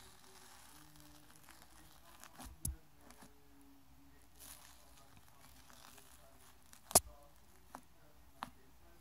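Slime being squeezed and stretched by hand: faint crinkling and a few sharp clicks, the loudest about seven seconds in.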